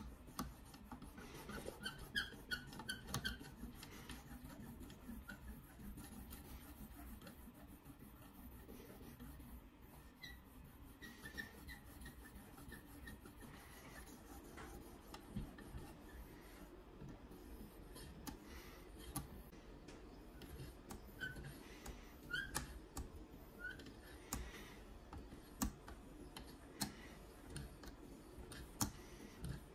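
Abrasive on a KME guided knife sharpener drawn in repeated strokes along the edge of a CPM 20CV steel blade: quiet rubbing with light clicks and an occasional short squeak.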